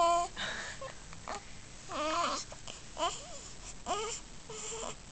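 Newborn baby grunting and whimpering in his sleep: a string of short, high-pitched sounds, roughly one a second.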